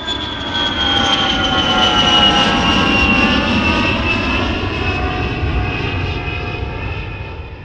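Airplane flying past: a dense engine noise with a high whine that slowly falls in pitch, growing louder and then fading away near the end.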